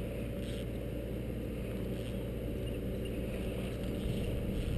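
Small boat's motor running at a steady pace, a low even drone.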